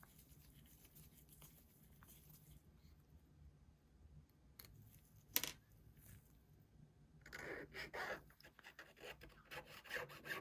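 Faint rubbing and scraping of a hand tool working on the opened smartphone, with one sharp click about five seconds in; the rubbing gets busier for the last few seconds.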